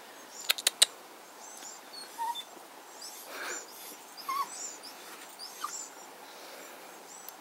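Dog whining in a few short, soft, high whimpers, with small birds chirping faintly outside. A quick run of sharp clicks sounds about half a second in.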